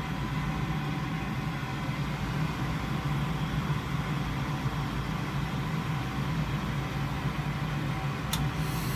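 Goodman gas furnace running with its draft inducer motor humming steadily and gas flowing through the burners, with one sharp click near the end. The gas is not lighting because the hot surface igniter does not glow, which the technician suspects is the fault.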